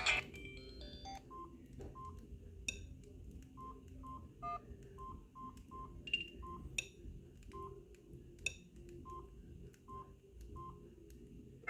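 Samsung SGH-D500C keypad tones: about a dozen short, faint beeps at one pitch, irregularly spaced as buttons are pressed, with light button clicks between them.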